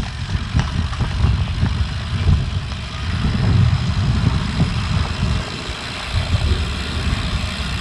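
Wind buffeting the microphone of a camera carried on a moving bicycle: a loud, uneven low rumble over a steady hiss.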